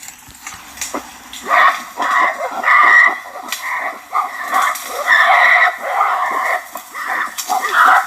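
A gorilla calling in a series of short, repeated cries that start about a second and a half in, following one after another at irregular spacing.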